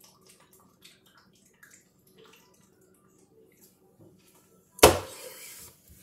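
A person drinking soda from a can of Mountain Dew: faint sips and small clicks, then a sharp knock about five seconds in followed by about a second of breathy hiss.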